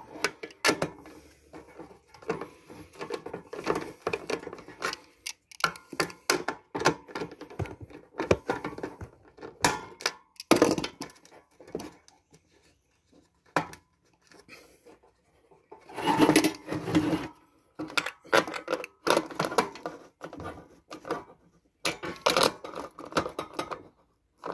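Irregular clicks, taps and knocks of small metal fittings and tools against the wood and tin of a bee smoker, as screws and nuts are worked in to fasten a new bellows on.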